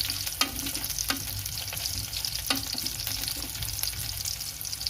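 Crushed garlic and ginger sizzling steadily in hot oil in a pan as they are stir-fried, with a utensil clicking against the pan a few times.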